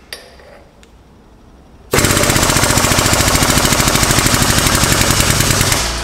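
A few faint clicks, then about two seconds in the air-driven pump of a 12-ton pneumatic/hydraulic bottle jack starts with a loud, rapid chatter, pumping the ram up to crush a half-inch EMT pipe flat. Just before the end the chatter gives way to a steadier drone.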